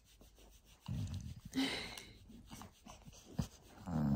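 Labradoodle dog breathing close to the microphone, with a sharp exhale about a second and a half in; a low groan starts near the end.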